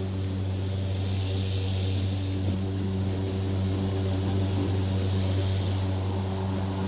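Petrol lawn mower engine running steadily at a constant speed while mowing grass, with a high hiss that swells and fades every couple of seconds.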